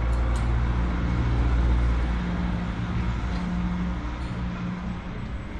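Low rumble of a motor vehicle's engine running close by, with a steady hum; loudest in the first two seconds, easing off near the end.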